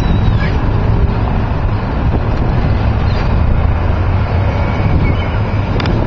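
Wind buffeting the microphone, a steady low rumble throughout, with a few faint short bird calls over it.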